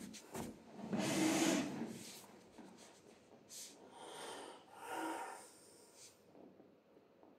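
Soft rubbing and scuffing as socked feet and cotton trouser legs shift against a wooden floor and chair. It comes as a few separate swells, the loudest about a second in.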